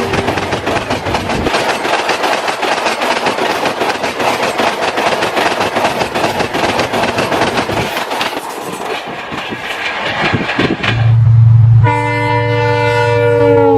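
An Indian Railways train passing at speed, its wheels clattering rapidly over the rail joints. A locomotive follows with a low engine hum and a sustained horn over the last two seconds, which drops in pitch near the end as it passes.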